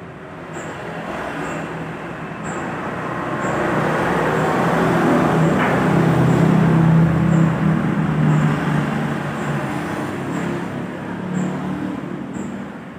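Road traffic passing close by: a minibus and a motorcycle go past, the engine noise building to a peak in the middle and easing off toward the end.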